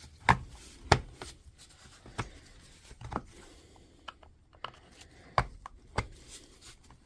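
Hard parts knocking and clicking together as a DeWalt DCH273 cordless SDS rotary hammer is reassembled by hand. It is a series of sharp knocks and clicks at irregular intervals.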